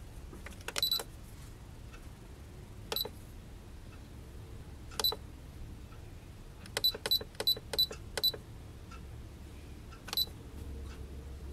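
Futaba FC-28 radio transmitter giving short high beeps as its keys are pressed to program a setting. The beeps come singly a couple of seconds apart, with a quick run of about six near the middle.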